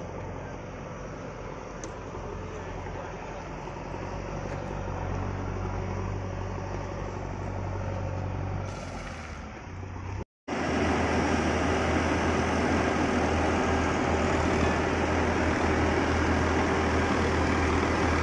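Steady outdoor background noise with a low rumble. A brief dropout comes about ten seconds in, after which the noise is louder.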